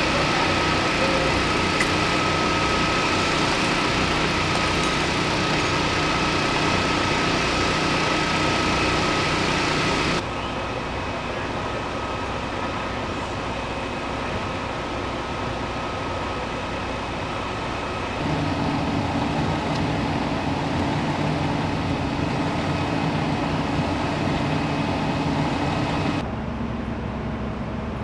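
Fire engines' diesel engines running steadily at idle, a low drone with a thin steady whine over it. The sound changes abruptly about a third of the way in, again past halfway and near the end.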